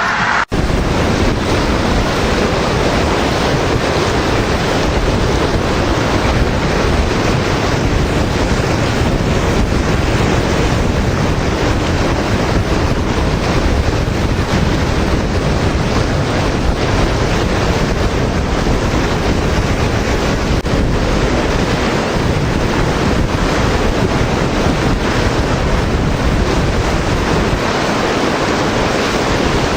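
Steady rushing of a swollen, flooding river, with wind buffeting the microphone.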